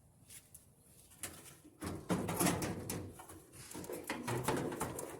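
Scraping and clattering of a dryer's metal drum and cabinet parts being handled and fitted back into place, with scattered clicks at first and a louder stretch of rubbing and knocking from about two seconds in.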